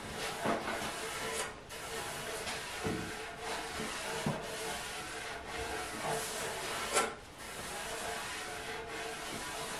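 Sheet of sandpaper rubbed by hand along the edge of an oak plank, in continuous back-and-forth sanding strokes, with one sharp knock about seven seconds in.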